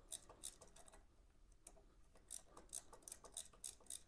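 Faint clicking of a ratchet wrench turned in short strokes as a bolt on the engine is worked loose, a few clicks a second, coming faster in the second half.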